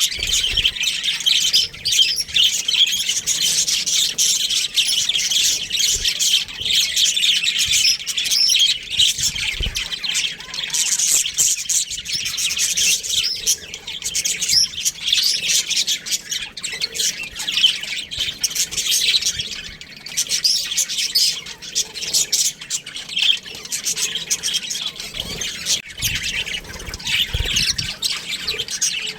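Budgerigars chirping and chattering without pause, many quick overlapping calls, with a few soft knocks underneath.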